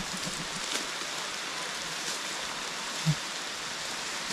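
Steady rain falling on the tree canopy, an even hiss of drops on leaves. There is one brief low thump about three seconds in.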